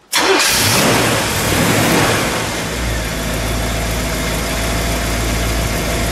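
1960 Chevrolet Impala's 348 cubic-inch V8 starting. It fires up suddenly, runs fast and loud for about two and a half seconds, then settles into a steady idle.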